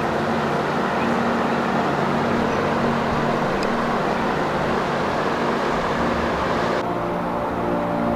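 A creek running: a steady wash of flowing water that cuts off about seven seconds in. Background music with sustained tones plays underneath.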